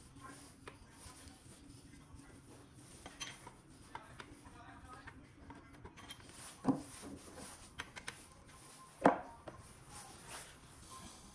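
Metal hand tools clinking and scraping as they are handled and set down, with two louder metal clanks, one a little past halfway and one about three-quarters of the way in.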